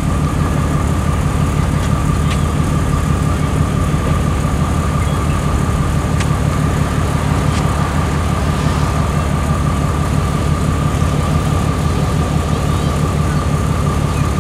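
Railroad crossing's electronic bell ringing steadily over the low rumble of a diesel freight locomotive's engine running close by.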